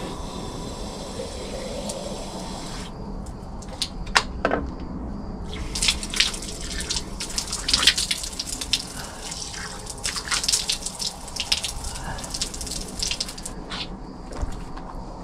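Water running steadily from a roadside drinking fountain. After about three seconds a string of sharp clicks and knocks comes in over it.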